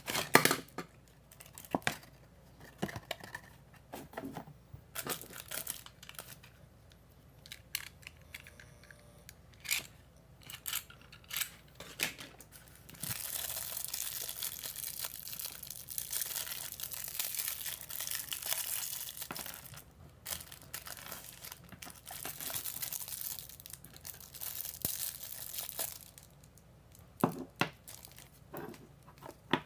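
Plastic packaging crinkling and tearing as small plastic bags are opened by hand, with a long continuous stretch of crinkling through the middle. Scattered short clicks and rustles of the cardboard box and plastic parts being handled come before and after it.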